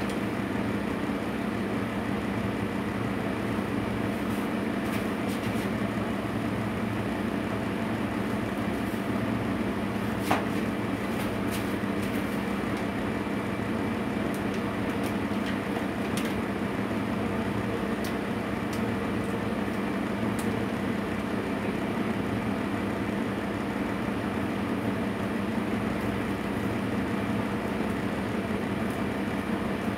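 Steady mechanical hum from kitchen equipment, with a few light clicks and one sharper tick about ten seconds in from handling at the counter.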